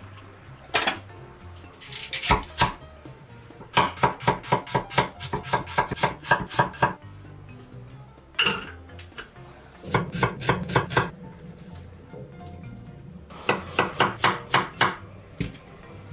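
A chef's knife chopping vegetables on an end-grain wooden cutting board, in three runs of quick, even strokes. A few single knocks and clatters of pots and pan lids fall between the runs.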